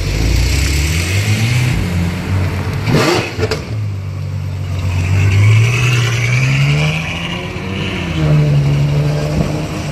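Sports car engines pulling away one after another off a ferry ramp: a Ferrari's engine rises as it passes, then a Porsche Panamera's engine revs up and falls as it rolls by. A sharp double clunk about three seconds in.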